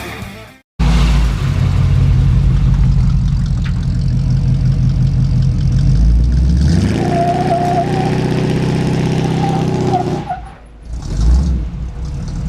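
A motor vehicle's engine running steadily, then revved up and held at higher speed for a few seconds before it falls off.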